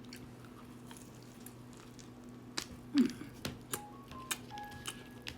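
Mouth sounds of someone eating Korean fried chicken: a run of short sharp clicks and crunches of biting and chewing from about halfway on, over a faint steady low hum.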